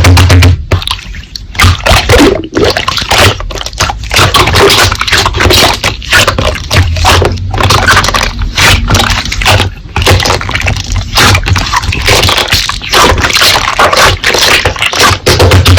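Slime being squished, pressed and poked by hand: a continuous run of wet clicks, pops and squelches. A low hum swells in and out a few times.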